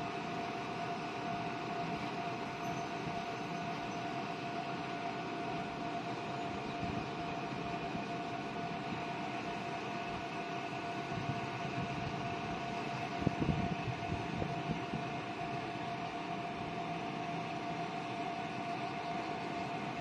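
Diesel railcar idling at a station platform: a steady hum with one held tone. A brief low thump comes about two-thirds of the way through.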